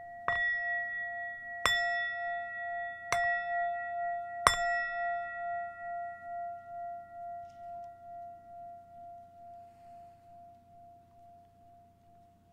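A singing bowl struck four times, about every second and a half, each strike ringing on one pitch with a wavering pulse in the tone, then fading away slowly.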